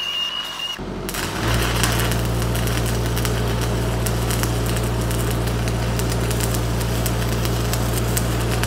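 An angle grinder with a wire wheel whines briefly and cuts off about a second in. Then a 5/32" 6013 stick electrode strikes an arc and burns with a steady dense crackle over a low hum, running a fillet weld with the machine turned down to about 80 amps.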